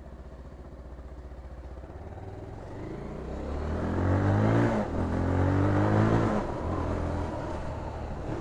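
Bajaj Pulsar 220 motorcycle engine accelerating. Its pitch climbs from about three seconds in, dips briefly near the five-second mark, holds, then eases off after about six seconds.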